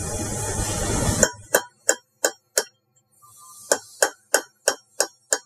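A steady hiss cuts off about a second in. Then a hammer strikes a steel chisel held against a centrifugal pump's worn wear ring with sharp metallic blows, four, a pause, then six more at about three a second. The chisel is cutting between two drilled holes to break a piece out of the ring so it can be removed.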